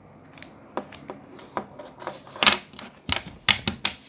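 Plastic toy pieces and packaging being handled: irregular clicks and crackles, sparse at first and busier and louder in the second half.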